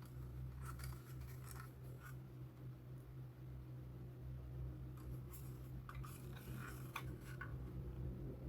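Faint rustling and light clicks of packaging being handled as a tool charger is unpacked, in two short spells, about a second in and again between five and seven and a half seconds, over a steady low hum.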